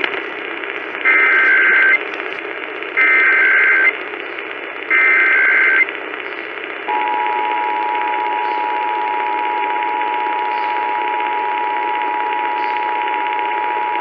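Emergency Alert System tones over AM radio on a Kaito Voyager Pro: three one-second buzzing SAME header data bursts about a second apart, then from about seven seconds in the steady two-tone attention signal, over a constant hiss of AM static. They mark the start of a Required Monthly Test.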